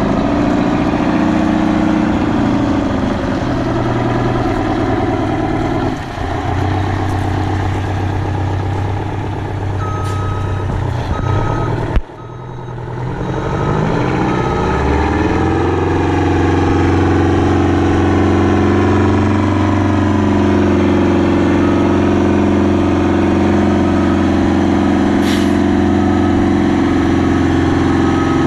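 Detroit Diesel 8V92 two-stroke V8 diesel running through a 5-inch exhaust stack. About twelve seconds in there is a sharp crack and the sound drops away, then the engine climbs back to a steady, higher note; a repeating high beep sounds over it in the second half.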